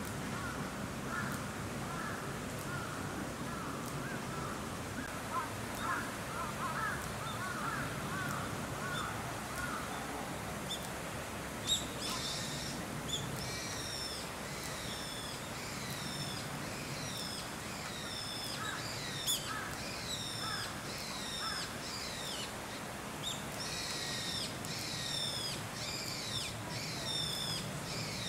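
Wild birds calling outdoors. A run of short, lower-pitched calls fills the first part, then from about twelve seconds in a long series of quick, high, falling chirps repeats, over a steady low background hum.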